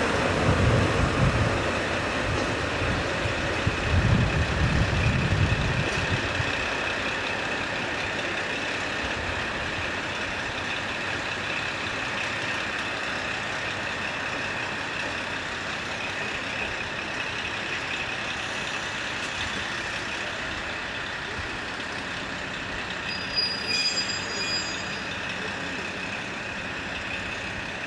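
DE10 diesel-hydraulic locomotive running past close by, its engine and wheels giving a loud low rumble for about six seconds that then fades to a steady distant drone as it moves away. A few short high-pitched sounds come near the end.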